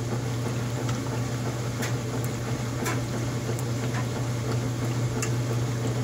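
Old top-loading washing machine running an empty rinse cycle: a steady motor hum under water churning in the tub, with a few faint clicks.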